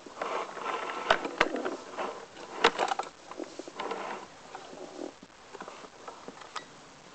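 Equipment being handled: irregular scraping and rustling, with sharp clicks about a second in and a cluster near three seconds, quieter in the second half.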